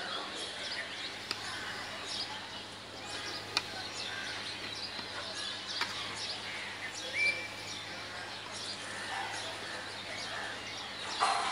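Small birds chirping throughout, with a few sharp clicks of a metal spoon against the cooking pan as the rice is stirred.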